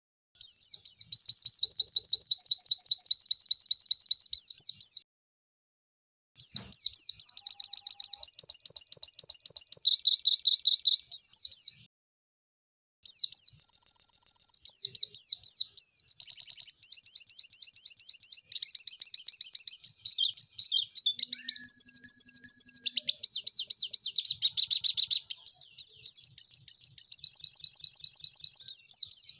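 White-eye (pleci) singing fast, high-pitched rattling runs of rapidly repeated notes, the 'tembakan' song, in long phrases of several seconds each with short breaks between them.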